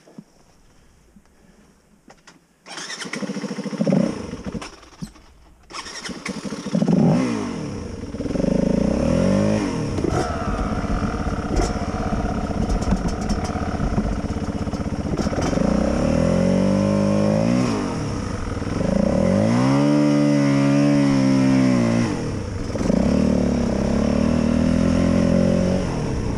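Yamaha WR250 dirt bike's single-cylinder four-stroke engine pulling away from a standstill. The getaway is uneven and jerky for the first few seconds. The revs then rise and fall back again and again as the bike goes up through the gears.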